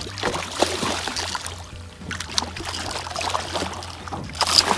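A hooked pike thrashing at the surface beside a boat, splashing in two long irregular bouts, the loudest splash near the end.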